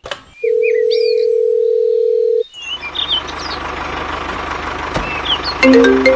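Birds chirping. A steady single-pitch tone sounds for about two seconds, then a steady engine-like noise starts. Near the end a tune of short bell-like notes begins.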